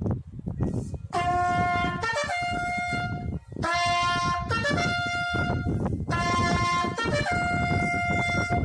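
A solo trumpet playing a slow, solemn call in long held notes, one after another, with a short break about three and a half seconds in. A low rumble runs under it.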